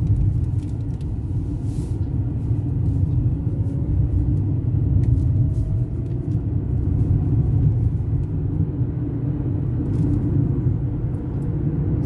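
Steady road and tyre rumble heard inside a car's cabin while driving at speed on a highway.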